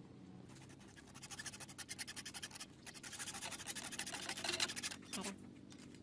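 Rapid, rhythmic scraping: two runs of quick strokes, each lasting about two seconds, the second louder, then a single knock near the end.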